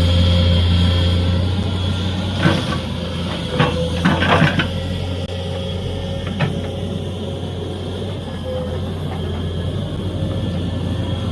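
Excavator's diesel engine running steadily, with a cluster of sharp knocks a few seconds in and one more a little later.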